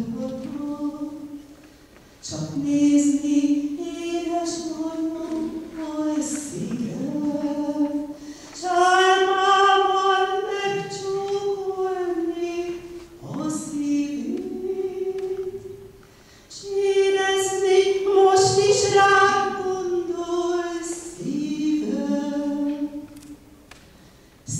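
A woman singing solo and unaccompanied, in long sustained phrases with short breaks for breath every six to eight seconds.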